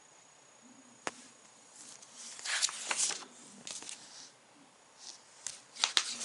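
Pages of a hardcover picture book being handled and turned: a sharp tap about a second in, then paper rustling and swishing in several short bursts, the loudest page flip near the end.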